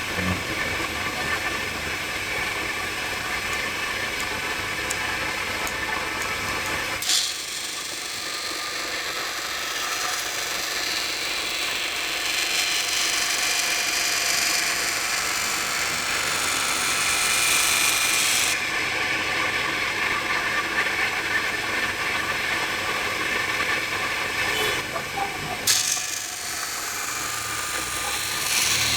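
Scissor blade being ground against a sharpening stone, a steady abrasive scraping that changes character abruptly a few times.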